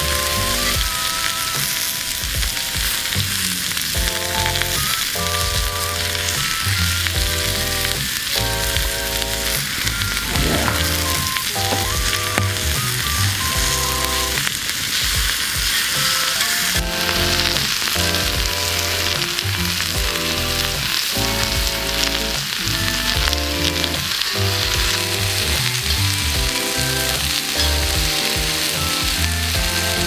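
Lamb and bean sprouts sizzling steadily in a hot cast-iron pan over a campfire, under background music of held chords with a bass line.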